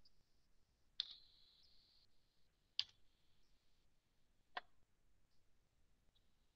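Three separate faint clicks, a little under two seconds apart, over near silence.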